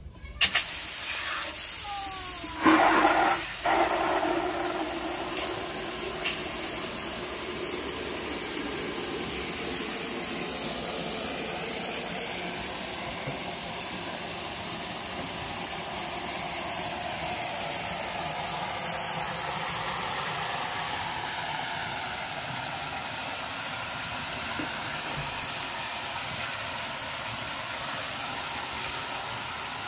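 A tap opened suddenly, sending a strong stream of water splashing into a plastic bucket; a steady rushing splash throughout, with a few louder splashes in the first few seconds.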